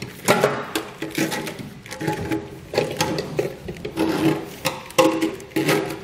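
Corrugated plastic loom of a Pollak trailer wiring harness being pushed down through a hole in a steel pickup bed, rubbing and rasping in irregular strokes against the hole's edge, with a few short squeaks.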